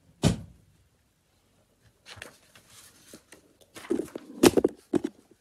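A sharp thump just after the start, then scattered clicks and rustling, building to a cluster of louder knocks and rustles about four seconds in, as someone moves about and handles things right next to the microphone.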